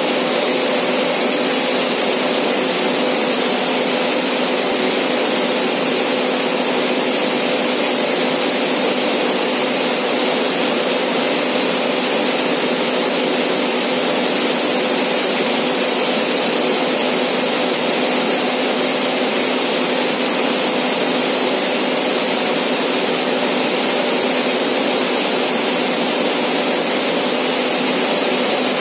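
Rittal enclosure cooling unit running: a steady rush of fan air with a steady hum under it.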